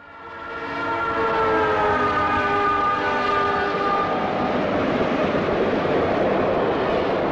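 Diesel locomotive's air horn, several tones at once, sounding as a streamlined passenger train approaches, dipping slightly in pitch about four seconds in as it passes. Then the loud rush of passenger cars going by close.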